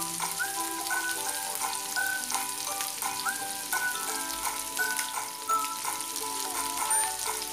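Chicken wings frying in hot oil in a pan: a steady sizzle with small scattered pops and crackles. Light background music with a melody plays over it.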